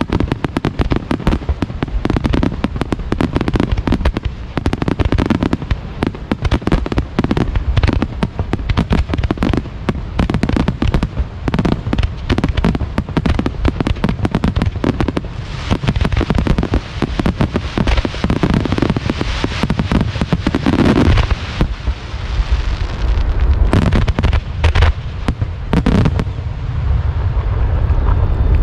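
Star mine fireworks barrage: a dense, rapid stream of shell launches and bursts going off almost on top of one another, with deep booms. From about halfway a thicker crackling hiss fills in under the bangs, and a few heavier booms stand out near the end.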